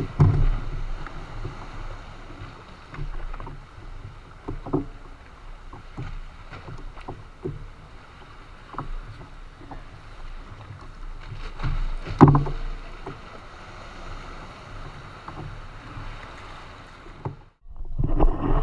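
Water lapping against a fishing kayak's hull on choppy water, with scattered small knocks and handling noises and one louder knock about twelve seconds in. The sound drops out briefly near the end.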